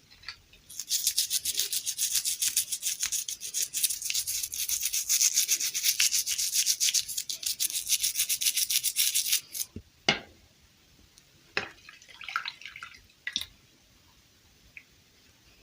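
Rapid, even scratchy rubbing strokes, like brushing or scrubbing, running for about nine seconds and stopping suddenly, followed by a few light handling clicks and scrapes.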